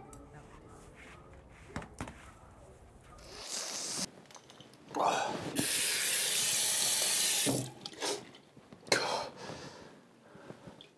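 Water running for about two and a half seconds, then cut off suddenly, among a few scattered clicks and knocks.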